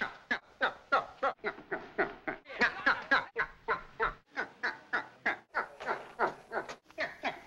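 A man's comic falling yelps or cackle from an old slapstick film soundtrack: short sharp bursts repeated about four times a second, each dropping in pitch.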